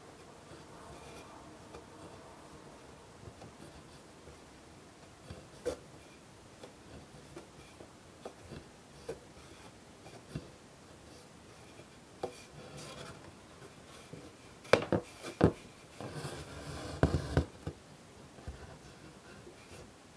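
Hand embroidery: a needle pierces the fabric with small ticks and pops, and white thread is drawn through the cloth with a soft scratchy rasp. Two sharp clicks and the longest, loudest pull of thread come in the last third.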